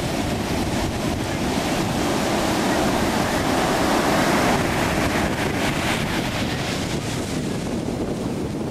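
Ocean surf breaking and washing up the beach in a steady rush, swelling a little about halfway through, with wind buffeting the microphone.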